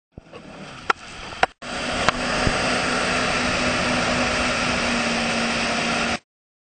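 Towing motorboat running at speed, its engine hum under a loud steady rush of wind and spray on the microphone. It starts about one and a half seconds in, after a quieter stretch with a few sharp clicks, and cuts off abruptly near the end.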